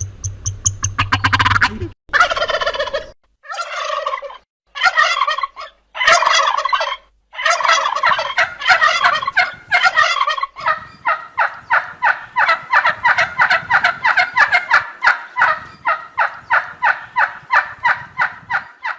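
Turkey gobbling: several separate gobble bursts with sudden gaps between them, then from about ten seconds in a long run of rapid rattling gobbles, about four a second.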